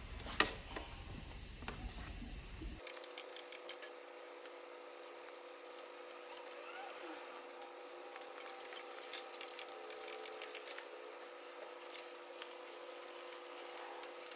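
Scattered metallic clicks and clanks from a long-handled wrench on the connecting-rod cap bolts of a Mercedes OM 460 diesel block as they are tightened, over a steady faint hum.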